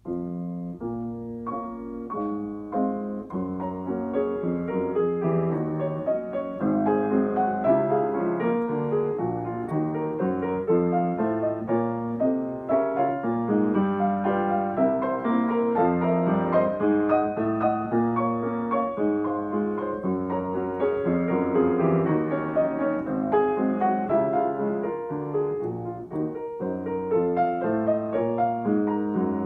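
Steinway & Sons Model L 5'10" grand piano, built 1997, played with both hands: a continuous run of notes spread over the bass and middle range.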